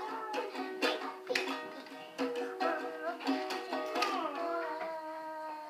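A person singing a blues song, accompanied by a strummed small stringed instrument.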